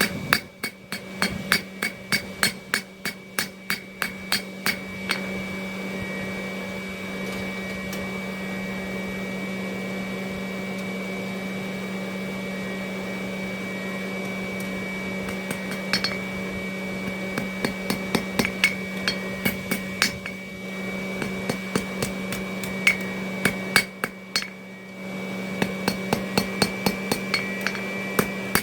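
Hand hammer striking hot steel on an anvil in quick runs of about three blows a second, with a bright ring after each blow. The hammering stops for about ten seconds in the middle and resumes, over a steady low hum.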